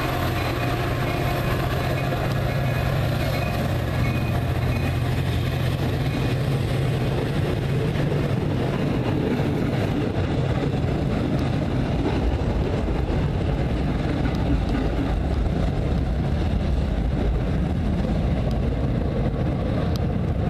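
Commuter train's diesel locomotive running, a steady low rumble with a broad noisy wash over it.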